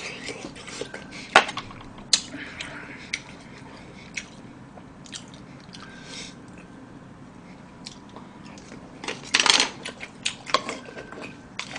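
Close-up eating sounds: chewing of scorched-rice soup and green onion kimchi, with sharp clicks of chopsticks and spoon against bowls. The loudest click comes about a second and a half in, and a longer burst of clatter and scraping about nine and a half seconds in.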